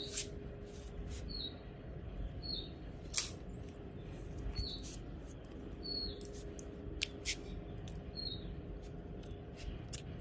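A puppy's short, high-pitched squeaky whimpers, repeating roughly every second or two as it begs for food, with a few sharp clicks between them.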